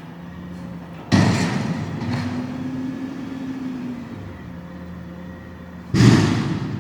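Garbage truck engine running steadily, broken by two loud, sudden clanking or hissing noises from its working gear, about a second in and again near the end, each dying away quickly. Between them a machine hum rises slightly in pitch.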